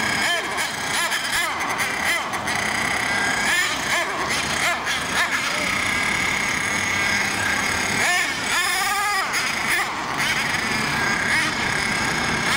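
A radio-controlled model monster truck's small nitro engine runs with a high-pitched whine, revving up and down as it is driven. It revs hardest around eight to nine seconds in.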